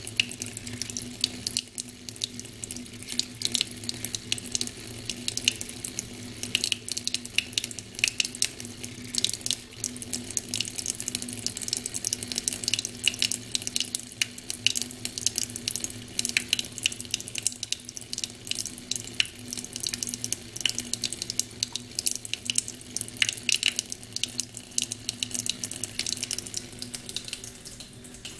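A thin stream of tap water running into a stainless steel kitchen sink: a steady splashing with many small, irregular spatters.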